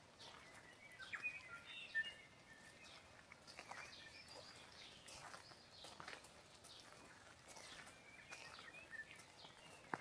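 Faint birdsong: scattered short chirps and whistled notes, busiest in the first few seconds and again near the end. Soft footsteps sound now and then.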